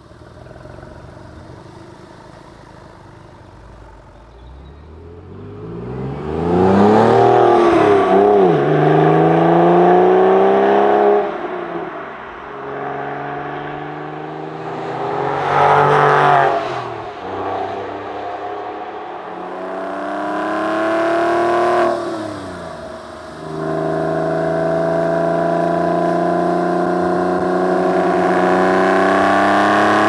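Porsche 996 Carrera 4S's 3.6-litre flat-six pulling hard through the gears: the engine note climbs, drops back at each upshift and climbs again. It is loudest as the car sweeps past about halfway through, then winds up steadily again near the end.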